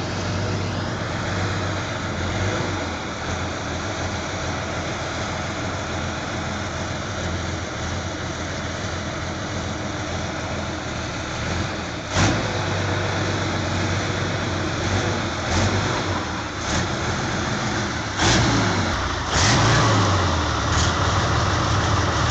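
The 38,000 cc engine of the world's heaviest motorcycle running loudly and steadily, with sudden loud bangs about twelve seconds in and several more near the end.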